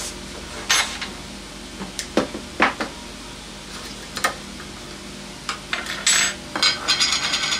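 Metal clinks and knocks of a can of contact cement being handled and its lid pried open, a few separate sharp clicks at first, then a denser stretch of scraping and rattling near the end.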